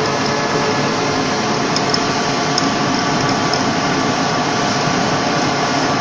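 Metal-turning lathe running with its chuck spinning: a steady mechanical whir with a faint hum of steady tones through it.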